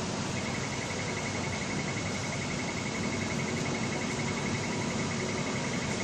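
Needle detector alarm beeping rapidly at one high pitch, starting about half a second in, over a steady machine hum: the detector has picked up the metal in the calibration test card as it passes the head.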